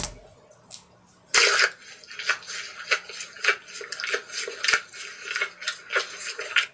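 Lizard sound effect: a licking noise followed by chewing, with a repeated scraping rasp. It starts abruptly about a second and a half in and cuts off suddenly at the end.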